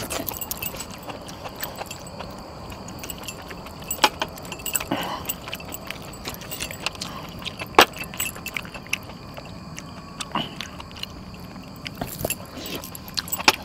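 Metal bangles and rings jangling and clinking while someone eats by hand from a steel plate, with a few sharp metallic clinks standing out over the softer jingling.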